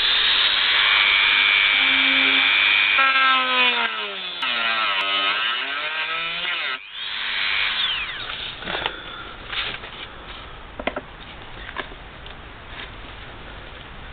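Dremel rotary tool with a cut-off disc spinning up to a steady high whine and grinding slots into rusted self-tapping screw heads so they can be turned out with a screwdriver. Its pitch falls and rises again in the middle, it cuts off sharply about seven seconds in and briefly runs again, then only scattered light clicks and scrapes follow.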